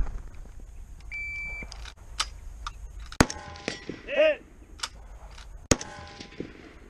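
Two rifle shots from a scoped rifle, about two and a half seconds apart. Each is followed by a brief metallic ring.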